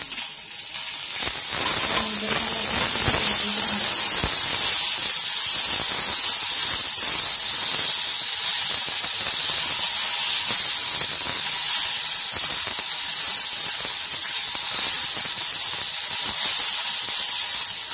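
Chopped tomatoes and sliced onions frying in hot oil in a kadhai, stirred with a metal spatula. The sizzle swells to a loud, steady hiss about two seconds in, once the just-added tomatoes are in the hot pan.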